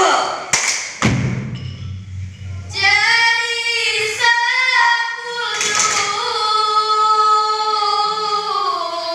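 A single voice sings a slow, drawn-out randai melody with long wavering notes, entering about three seconds in. A few sharp hand slaps from the performers sound near the start and around the middle.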